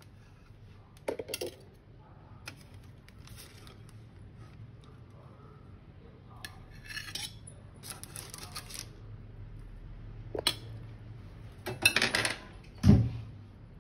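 Kitchen knife cutting slices from a rolled sponge cake on baking paper, with scrapes and rustles of the paper. Near the end the knife is set down with a clatter of metal on the kitchen counter, ending in a single heavy knock, the loudest sound.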